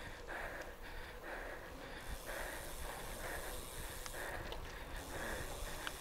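A cyclist breathing hard in a steady rhythm, about two breaths a second, working up a climb. Underneath is a low rumble of wind and tyres on a gravel road.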